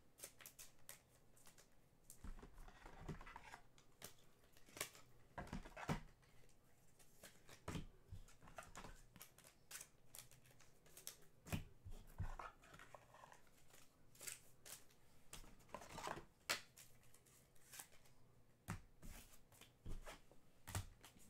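Faint, irregular clicks and taps, with a few brief faint whines.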